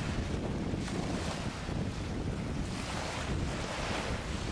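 Wind buffeting the microphone: a steady low rumble with hiss that swells and fades in gusts, over the wash of water.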